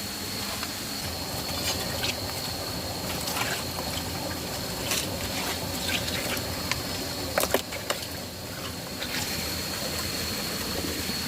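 Water running steadily, with scattered sharp clicks and knocks over it, loudest in a quick cluster about seven and a half seconds in. A thin, steady high tone sits above the water and drops out for about a second around the nine-second mark.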